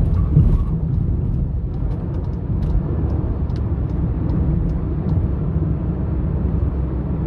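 Steady low rumble of tyres, wind and engine inside the cabin of a Volkswagen Jetta 1.4 turbo at highway speed. The driver is off the throttle and the car is coasting down from about 130 to 115 km/h.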